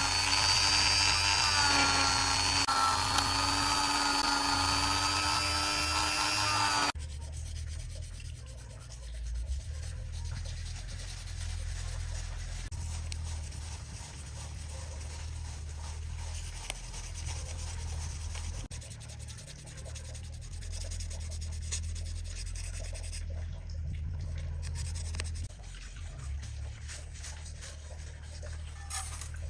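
High-pitched whine of a small rotary tool running, its pitch wavering slightly, which cuts off abruptly about seven seconds in. After that, faint rubbing and scraping of hand polishing over a low hum.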